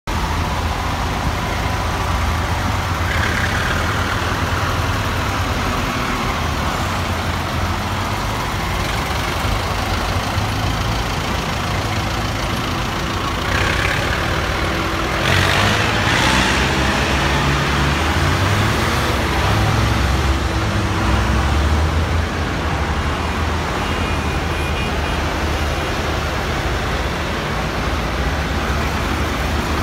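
Farm tractors' diesel engines running as the tractors drive past one after another on a wet road: a steady low rumble with tyre hiss. A louder rush of noise comes about halfway through.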